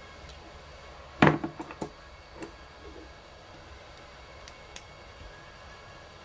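A short clatter of small hard objects about a second in, several sharp clicks in quick succession, followed by a few lighter single ticks, over a steady low hiss.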